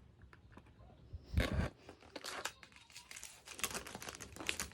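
Packaging being handled and opened: rustling and crinkling, with a louder tearing-like burst about a second and a half in, then a run of small crackles and clicks.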